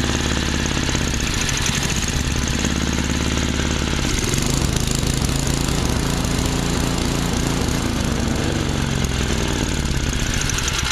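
Tecumseh 5 hp single-cylinder four-stroke snowblower engine running steadily while its carburetor mixture and idle screws are turned. Its speed shifts from about four seconds in as the adjustment is made.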